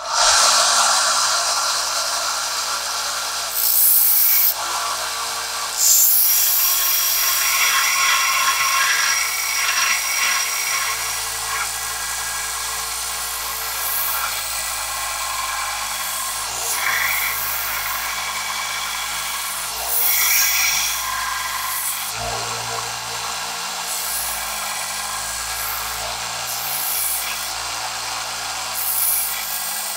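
Benchtop 1-inch belt and disc combination sander running, its abrasive belt grinding down a knife's wooden handle scales. The rasp swells and eases as the wood is pressed to the belt and lifted off, over a steady motor hum.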